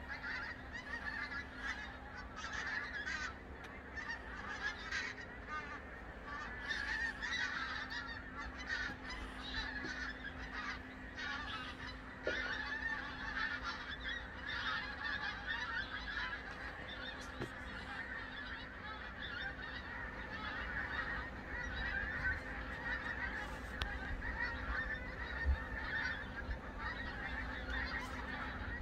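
A large flock of migrating geese flying overhead, honking continuously in many overlapping calls.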